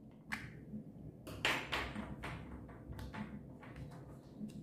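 Thick green slime being pressed and squeezed in the hands after coming out of a small plastic container, making a run of sticky crackles and pops. They are loudest about a second and a half in, and several sharper clicks follow.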